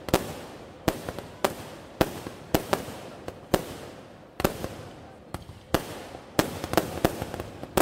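Firecrackers going off in an irregular string of sharp bangs, about two a second, each dying away over a fraction of a second.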